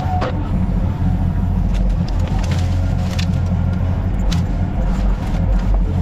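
Yanmar Vio25 mini excavator's diesel engine running steadily, with scattered sharp cracks and knocks over it.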